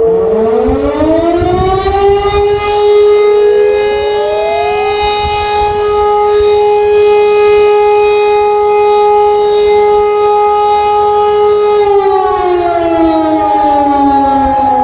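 Civil defence sirens, among them an E57 motor siren, sounding one blast of the German Feueralarm (fire alarm) signal. One siren winds up from a low pitch while a previous tone fades down, a second siren rises to a higher pitch a few seconds in, both hold a steady tone together, and both wind down about twelve seconds in.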